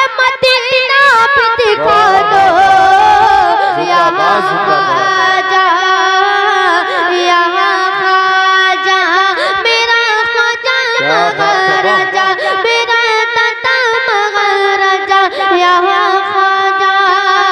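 A boy's high singing voice through a microphone, drawing out long ornamented notes that glide up and down: the melismatic passage of a manqabat in praise of Khwaja Gharib Nawaz.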